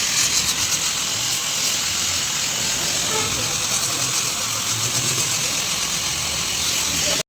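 A steady hiss throughout, with faint voices underneath.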